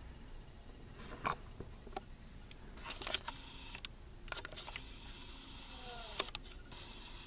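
Handling noise from a camera being repositioned and zoomed: scattered light clicks and knocks, the sharpest just over a second in and a small cluster about three seconds in.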